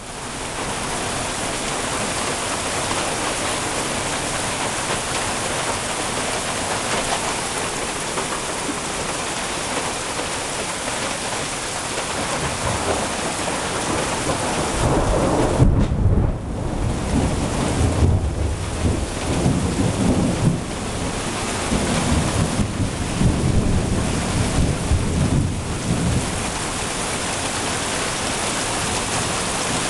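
Steady rain falling, with thunder rumbling in from about halfway through: a deep roll that is loudest a little past the middle, swells and eases several times, and dies away a few seconds before the end.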